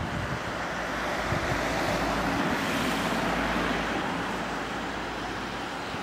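E57 electromechanical siren winding down after a test run, an airy rushing sound slowly fading, with wind noise on the microphone.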